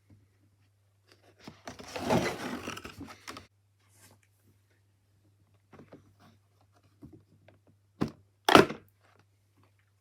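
Cardboard box being handled and opened: a scraping rustle about two seconds in, a few light clicks, then two sharp thunks near the end.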